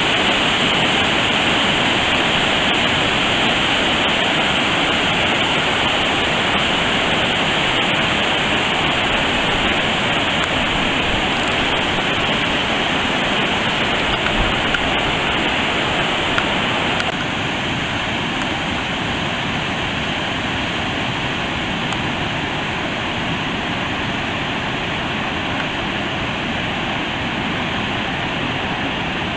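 Floodwater from a lake spillway rushing and churning over rocks in a steady, loud wash, the channel running high after heavy rain. The sound drops a little in level a bit past halfway.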